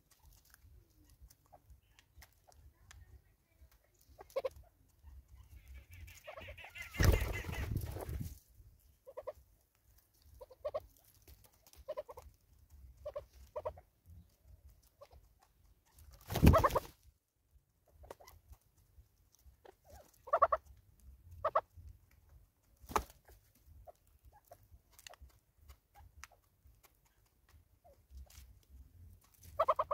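Soft, scattered single and double clucks from birds feeding at a seed feeder. Two loud thumps come about seven and sixteen seconds in.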